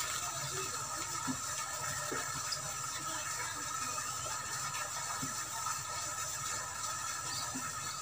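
Steady outdoor background ambience: an even hiss with a few constant high tones and a low steady rumble, with no distinct events.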